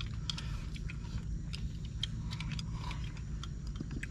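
Tableware clicking and clinking lightly and irregularly during a meal, over a steady low hum.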